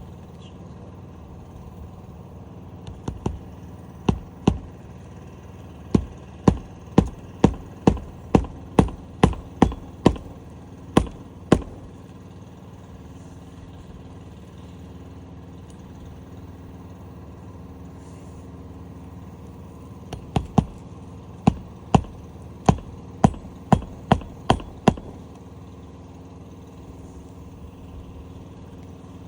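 Hammer blows nailing an asphalt roof shingle back down, in two runs of sharp strikes at about two a second, over a steady engine-like hum.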